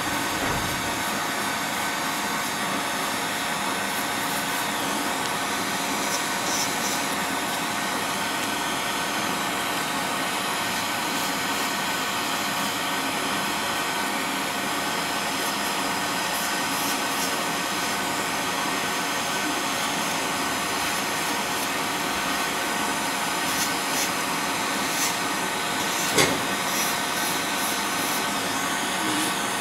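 Podiatry nail-drill unit with its dust-suction fan running steadily: an even hiss with a fixed hum, unchanged throughout. A single sharp knock sounds near the end.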